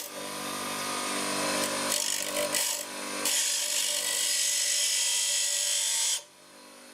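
Ferm FSM-150 bench grinder running at speed while a small steel screw is held against its fine grinding wheel, giving a steady harsh grinding hiss over the motor's hum. The grinding stops sharply about six seconds in, leaving only the quieter hum of the spinning wheels.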